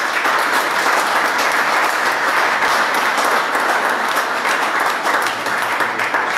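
A small group of people applauding, steady hand clapping.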